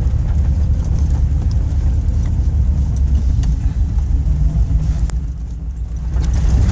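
Chevy Suburban driving over a rough dirt trail, heard from inside the cabin: a steady low rumble of engine and tyres with scattered small knocks and rattles, easing slightly about five seconds in before picking up again.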